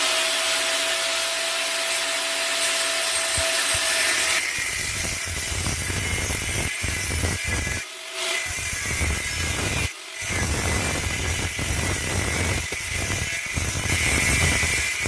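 Power tool working steel plate: a steady whine for the first four seconds or so, then a rougher grinding sound with two short pauses.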